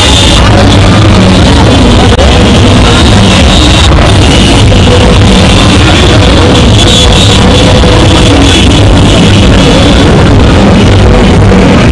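Very loud music playing without a break, with a pounding low end.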